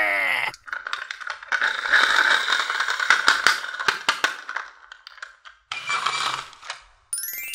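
Plastic toy police car being handled: its parts and wheels rattle and click in a whirring stretch for about four seconds, then quieter scraping as it is set down. A short rising chime sound effect plays near the end.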